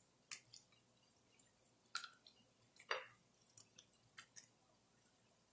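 Pieces of raw, seasoned red snapper fillet laid one by one into an oiled metal baking tray: a handful of soft, wet slaps and squishes with light taps on the metal, the strongest about three seconds in.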